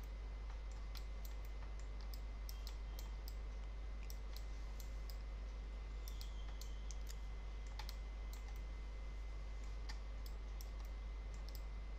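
Irregular clicking of a computer mouse and keyboard over a steady low hum, as a 3D model view is moved around on screen.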